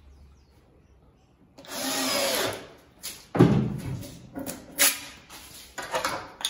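A cordless drill driving a screw in one short run of about a second, then a drawer on metal telescopic drawer slides being worked in and out: a few sharp knocks with sliding rattle between them, the loudest soon after the drill stops.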